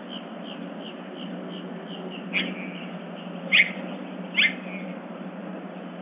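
Birds calling: a run of faint, quick chirps, about three a second, then three loud, short down-slurred calls about a second apart, over a steady low hum.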